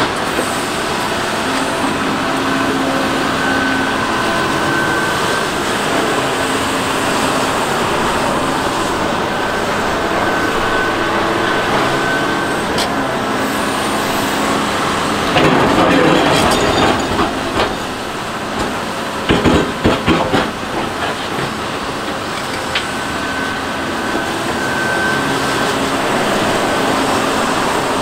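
Caterpillar 395 excavator working: a steady diesel engine and hydraulic drone with whining tones that rise and fade. Around the middle comes a run of loud metallic clanks and knocks.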